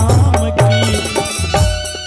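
Instrumental interlude of a folk devotional song: electronic organ holding melody notes over naal and tabla drumming, with deep drum strokes several times a second.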